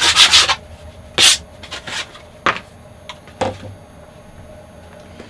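A hand pad rubbed hard over freshly CNC-cut MDF, buffing the torn fibres off the cut edges, with a last rough stroke about a second in. A few light knocks follow as the MDF pieces are handled and set down.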